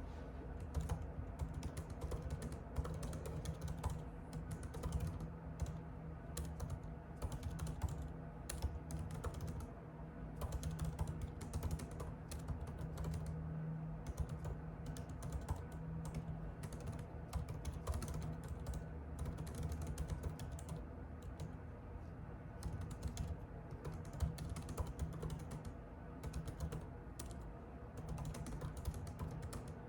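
Typing on a computer keyboard: a fast, continuous patter of key clicks with a few brief pauses, over a steady low hum.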